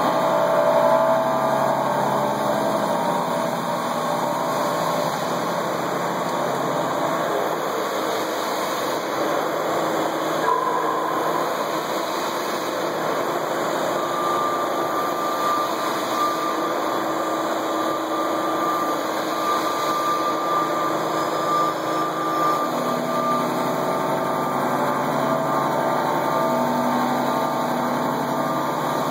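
Milling cutter roughing the bore of a steel crankshaft half-shell on a heavy machine spindle: a steady cutting and machining noise during heavy material removal, with a few held tones that shift through the pass. A higher steady tone joins about halfway through and drops out a few seconds later.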